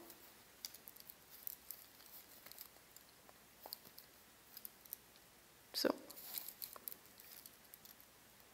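Faint scattered clicks and light rustling as a coiled snake bangle with a black scaled band is handled and slipped onto the wrist, with one brief louder sound about six seconds in.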